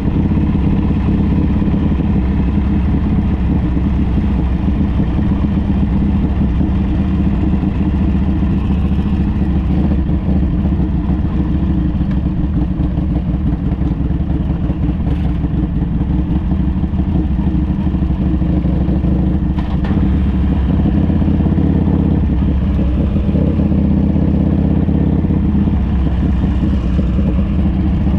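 Harley-Davidson trike's V-twin engine running steadily while riding.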